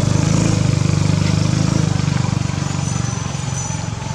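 An engine running with a steady low, pulsing hum that slowly gets quieter toward the end.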